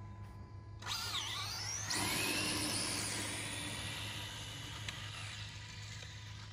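Two radio-controlled drag cars launching off the line and running away down the strip: a sudden motor whine about a second in that dips and climbs, a second rising whine just after, then a slow fade as they pull away.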